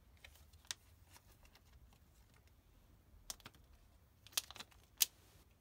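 Handling noise: a handful of light, sharp clicks and taps, scattered across a few seconds over quiet room tone, the most near the end.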